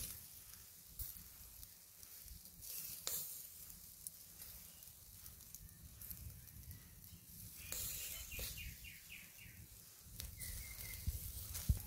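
Squid sizzling faintly on a wire grill over charcoal, a thin steady hiss with a few light clicks.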